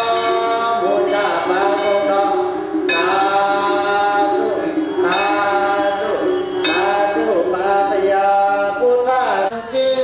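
A man's voice chanting melodically in long held notes that glide between pitches, phrase after phrase.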